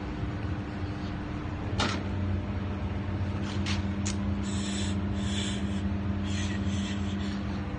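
Metalworking on a van chassis: a steady machine hum, a few sharp clicks, then from about halfway in, repeated short rasping bursts, each about half a second long.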